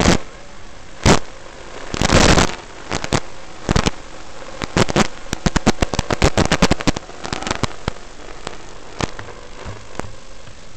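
Steady hiss of an analog FPV video link with loud crackling bursts of static, many of them packed together about five to seven seconds in, as the signal breaks up with the drone flying low among buildings.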